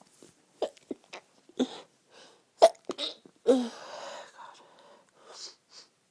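A fit of stifled sneezes in quick succession: a string of short, clipped sneezes, the loudest about two and a half seconds in, then a longer, breathier half-stifled one, with a few softer ones near the end.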